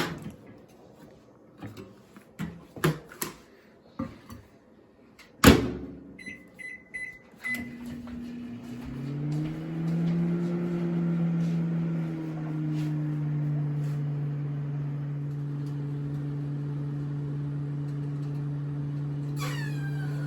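A microwave oven being loaded and started. There are light handling clicks, then a loud clunk of the door shutting, and a few short keypad beeps. After that the oven runs with a steady low hum.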